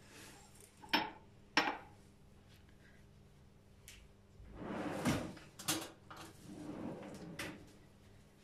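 Kitchenware being handled on a counter: two sharp knocks about a second in, then a stretch of clattering and rustling with a few clicks in the middle.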